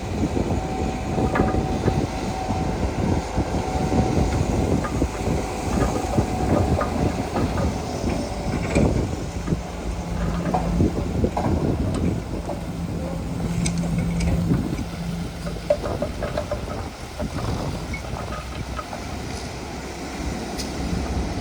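Tracked earthmoving machinery working: a diesel engine running under load with dense, irregular clanking and rattling of steel crawler tracks. A steady whine sounds through the first few seconds and a lower hum in the middle.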